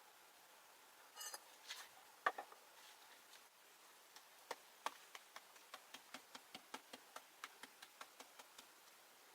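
Faint light taps and clicks, a few scattered ones at first, then a steady run of about three a second through the second half.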